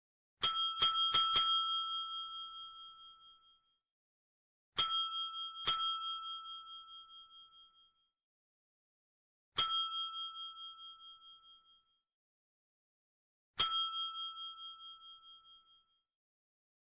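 Desk bell struck by hand: four quick dings close together, then two, then single dings about four seconds apart. Each strike rings with a bright, clear tone that dies away over a couple of seconds.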